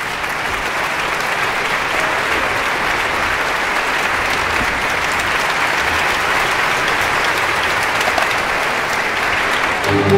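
Crowd applause: many hands clapping in a steady, dense patter. Music comes in near the end.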